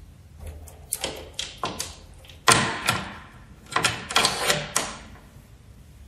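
Door chain lock being worked: the metal chain rattling and its slide knob clacking in the track, a run of sharp clicks and rattles, the loudest clack about two and a half seconds in.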